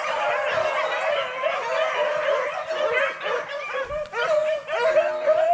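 A pack of rabbit beagles baying and yipping together, many dog voices overlapping with no break.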